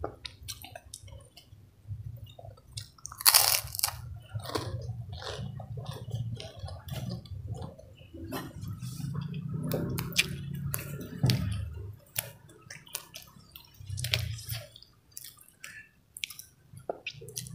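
A person chewing and crunching food close to the microphone, with many wet mouth clicks. There is one loud crunchy bite about three seconds in.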